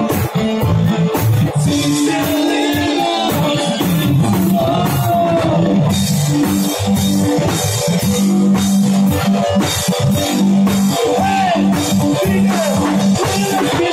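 A street rock band playing live: electric guitars over a drum kit, with a steady beat.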